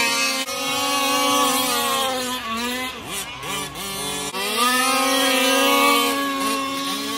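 1/5-scale RC race trucks running at high revs. Their pitch drops about two seconds in, as they back off for a turn, and climbs again as they accelerate out, with another brief dip near the end.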